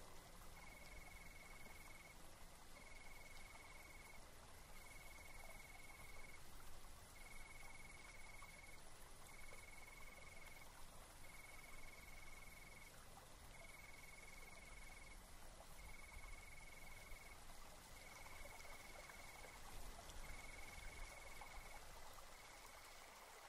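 Faint outdoor ambience with a high, even animal trill that repeats in pulses about a second and a half long, roughly every two seconds.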